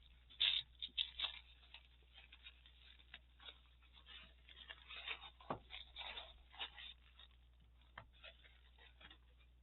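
Packaging being opened by hand: tearing and crinkling rustles, loudest in the first second and a half, then lighter, irregular rustling.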